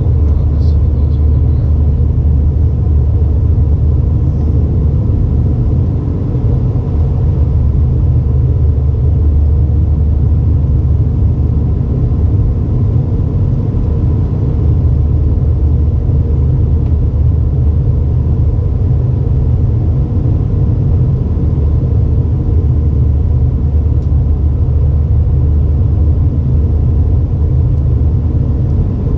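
Steady, unbroken low rumble of an Airbus A320 heard from inside the cabin: engine and airflow noise, with a faint steady hum over it.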